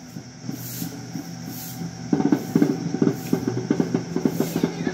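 Drums beaten in a fast, dense run of strokes that starts about two seconds in, over a low steady hum.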